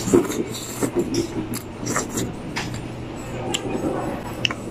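Slurping of noodles in laksa soup just after the start, then scattered light clicks of a plastic fork and spoon working in a paper cup, over a steady background hum.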